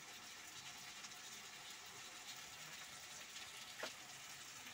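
Faint steady hiss, with one light click about four seconds in.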